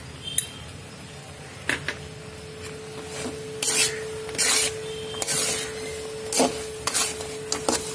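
Metal spatula scraping and stirring through sticky jaggery syrup and fried banana pieces in an aluminium wok, starting about three and a half seconds in as repeated strokes, under a faint steady hum.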